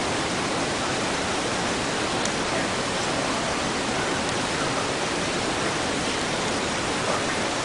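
Steady, even hiss, like static, unchanging throughout.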